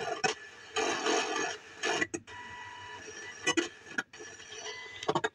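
A radio with poor reception: crackly, uneven bursts of sound that drop out briefly several times.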